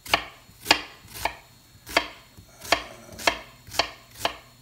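Kitchen knife chopping an onion on a wooden cutting board: about eight sharp chops at an even pace, roughly one every half second or so.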